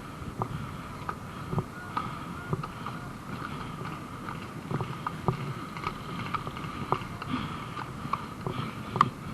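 Irregular knocks and clicks over a low rumble, like footsteps and gear rattling as an airsoft player moves about, with one sharper knock near the end.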